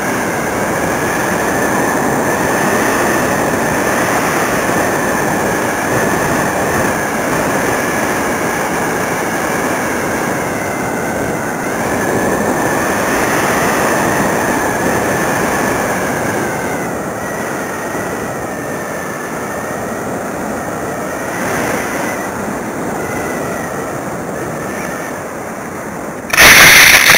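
Steady rushing airflow over a wing-mounted camera on an RC Optima XL glider in flight, with a faint wavering whistle. Near the end comes a sudden loud scraping impact as the model touches down in the grass.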